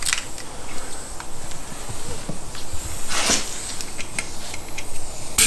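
Air hissing steadily while a tire bead is being set with a ratchet strap cinched around the tread, with scattered clicks and knocks, the loudest right at the end.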